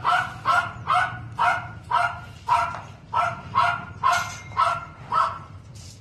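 Dog barking steadily, about two barks a second, until it stops about five seconds in.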